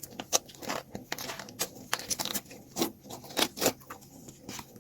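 Hands squishing and pulling apart sticky slime to dig out toys: an irregular run of soft wet clicks and crackles, several a second.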